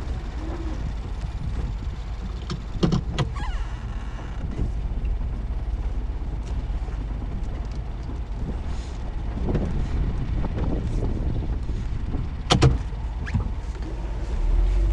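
Ford Transit camper van driving slowly, a steady low rumble of engine and tyres. Sharp knocks and rattles come about three seconds in and again near the end, the loudest one near the end.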